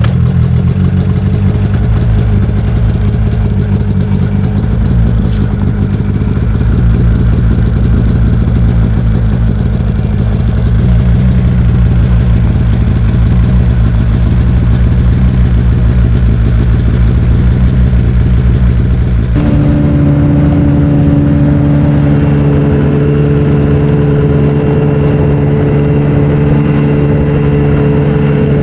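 A small vehicle's engine running steadily while under way over the ice. The engine note changes abruptly about two-thirds of the way through, becoming a smoother, steadier hum.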